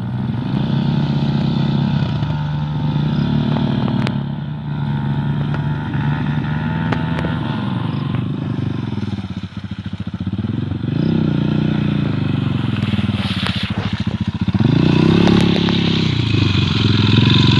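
Rusi Classic 250 motorcycle engine revving up and dropping back again and again, about five times, with a few sharp knocks, as the bike works its way through mud.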